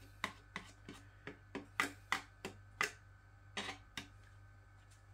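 Metal fork scraping and tapping in a plastic ready-meal tray, making a string of irregular sharp clicks, about two or three a second.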